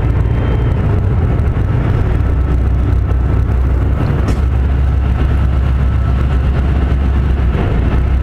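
A vehicle running at steady speed: a loud, even low rumble with no change in pitch.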